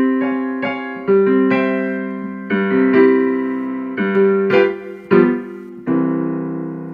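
Casio digital piano playing a piece in its piano tone, with chords struck every half second to a second. A final chord comes about six seconds in and is held, slowly dying away.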